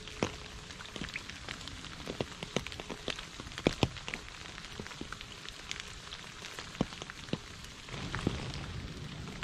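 Rain falling on puddles on a leaf-covered path: a steady hiss with single drops landing distinctly in the water, and a low rumble coming in near the end.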